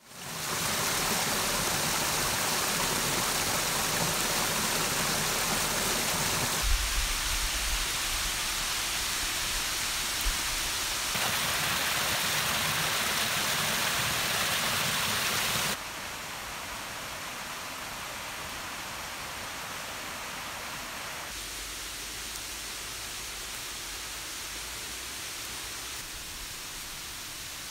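Running water of a small woodland stream cascading over rocks, a steady rushing that changes sharply in tone and loudness several times, and is quieter from about sixteen seconds in.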